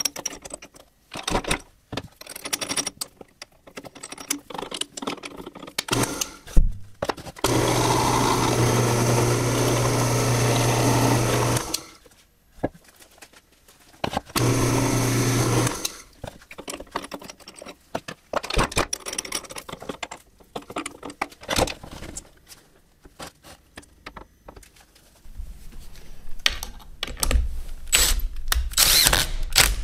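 Benchtop drill press motor running with a steady hum while drilling a pilot hole in Baltic birch plywood, for about four seconds and then again briefly after a pause, amid clicks and knocks of handling the tool. Near the end a handheld drill bores into a small plywood block.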